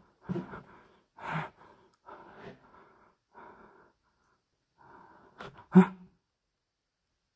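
Quick, heavy breaths close to the microphone, about one a second. Two sharp knocks come near the end, the second the loudest, and then the sound cuts off suddenly.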